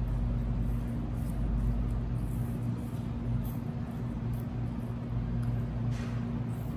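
A steady low hum with faint scattered ticks and rustles, and one sharper tick about six seconds in.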